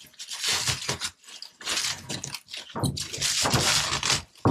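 Protective plastic film being peeled off a new resin 3D printer in several long pulls, each a noisy rasp with short breaks between.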